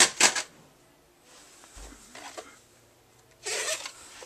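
Handling noise from a plastic VHS tape case: a few quick clicks and knocks at the start, then a short scraping rub about three and a half seconds in.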